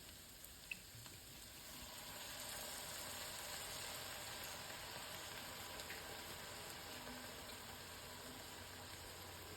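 Casserole base of onion, garlic and tomato puree with red wine just added, simmering in the pan: a faint, steady sizzle and bubbling that builds over the first couple of seconds as the wine reduces.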